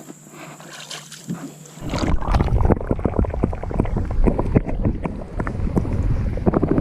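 Wind rumbling on the microphone with many sharp small knocks, starting abruptly about two seconds in; before that only a faint steady hum.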